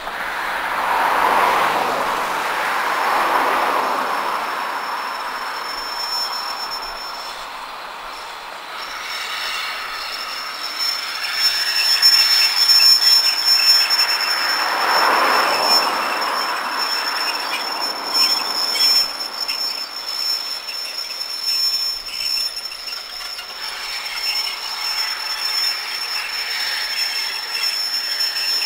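Two GWR steam locomotives, a Large Prairie 2-6-2 tank and a Manor class 4-6-0, running past double-headed with a passenger train: the rumble and clatter of wheels on rail swell as the engines go by, twice. A steady high-pitched whine runs through the second half.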